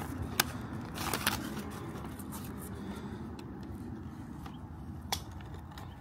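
Hands handling a plastic screen-protector alignment tray and film, giving a few sharp clicks and crinkles over a steady low background noise.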